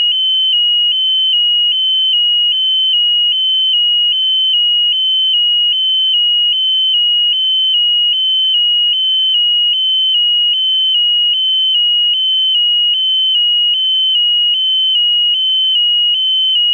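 Piezo alarm buzzer on the balloon payload sounding a continuous, loud, high-pitched tone that wavers slightly about twice a second.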